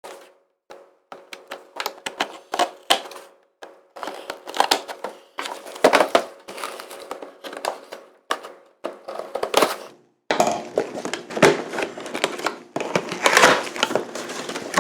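Action figure packaging being opened by hand: plastic and cardboard crinkling, crackling and clicking in irregular bursts, with a few gaps.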